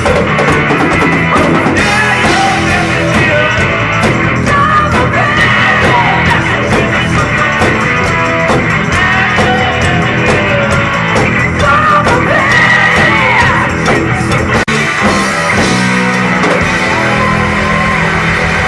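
Loud rock song with a sung, partly shouted lead vocal over guitar and a driving beat. There is a split-second break about fourteen and a half seconds in.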